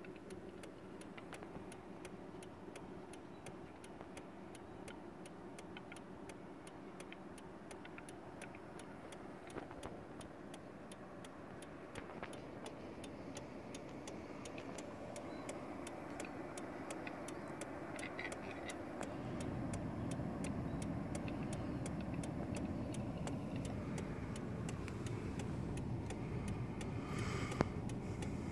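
Steady, even ticking about three times a second, like a car's indicator relay, heard inside the car's cabin. From about two-thirds through, the car's engine and tyre rumble grow louder as the car moves off. A single sharp knock comes near the end.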